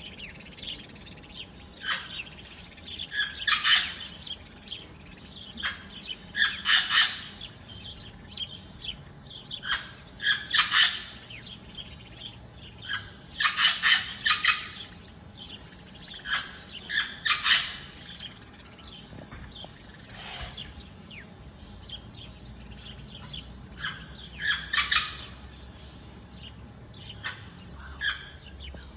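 Songbirds chirping in short bursts of quick notes every few seconds, over a faint steady outdoor background.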